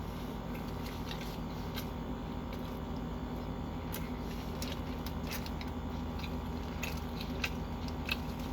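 Person chewing and biting into a Subway sandwich: scattered wet mouth clicks and smacks over a steady low hum.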